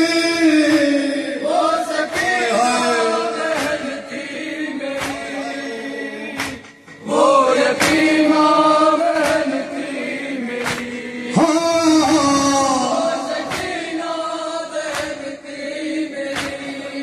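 Men's voices chanting a Shia noha (lament) in unison over microphones, with a brief break about seven seconds in before the next line begins. Sharp, regular hand slaps of matam (chest-beating) keep time about every second and a half.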